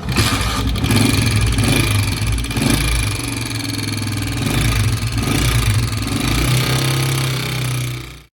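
125 cc motorcycle engine running with a loud mechanical clatter over the exhaust note, the engine noise fault that is to be repaired. It cuts off suddenly near the end.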